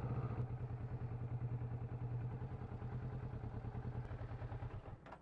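Motorcycle engine running at low speed with an even, rapid pulse, easing off slightly, then stopping abruptly near the end.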